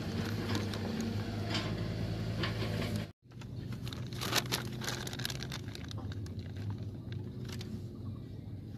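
A steady low motor hum with scattered faint clicks and knocks. The sound drops out for a moment about three seconds in; after that the hum is weaker and a few sharper knocks stand out.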